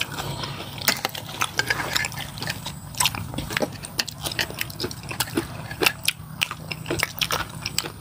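Close-up eating sounds: people chewing mouthfuls of noodle soup with beef and meatballs, with many irregular wet mouth clicks and smacks over a faint steady low hum.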